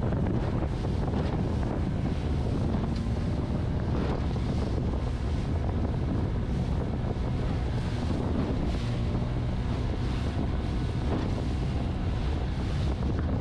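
Small aluminium boat running at speed through choppy sea: steady wind buffeting the microphone over the drone of the outboard motor and the rush of water past the hull.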